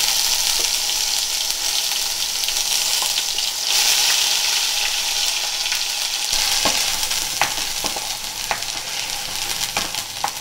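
Onion puree sizzling in hot oil with cumin seeds in a kadhai, loudest about four seconds in. In the second half a spatula stirs it, with light taps against the pan.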